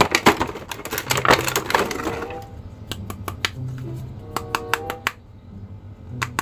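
Clear plastic bag crinkling and crackling as plastic action figures are grabbed and handled, densest in the first two seconds, then a few scattered light clicks of hard plastic figures knocking together. Background music plays underneath.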